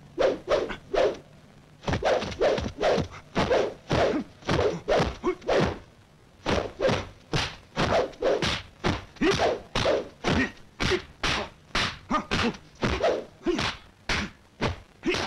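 Rapid run of kung fu film fight sound effects: wooden staff strikes and blows landing as sharp thunks and thwacks, about two to three a second, with two short pauses, one about a second in and one about six seconds in.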